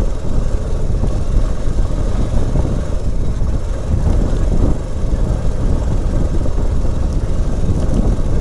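Motorcycle riding along an unpaved dirt track: engine and road noise in a steady, low rumble.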